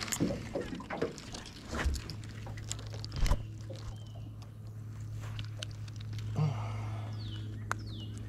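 Clicks and knocks from a small catfish being landed and handled in a boat, over a steady low hum from the electric trolling motor that grows stronger about three seconds in. Two short falling chirps come near the end.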